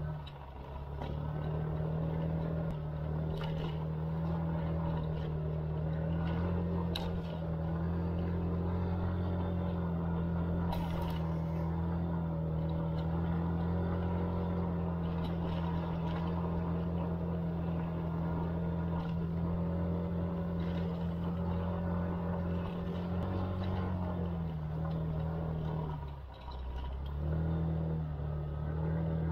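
SYM scooter engine running steadily under way, its note easing and dropping off about twenty-five seconds in, then picking up again. A few sharp ticks are heard early on.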